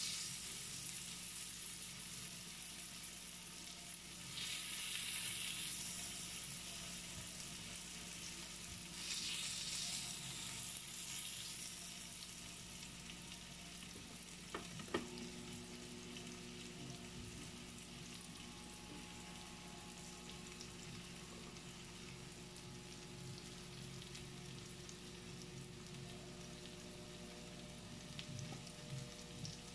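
Marinated meat slices sizzling on the ridged plate of an electric grill, the sizzle swelling twice in the first dozen seconds and then settling to a quieter steady frying. A sharp click about halfway through.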